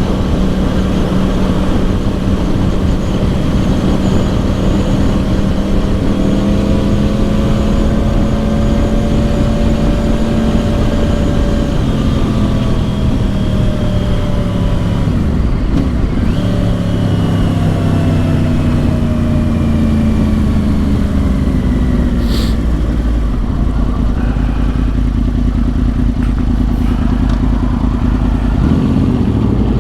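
2010 Yamaha R1's crossplane inline-four through dual Yoshimura exhausts, heard riding along. The engine note holds steady at first, falls in several steps through the middle as the bike slows or shifts, settles into a low steady drone, and climbs again near the end, over a steady rush of noise.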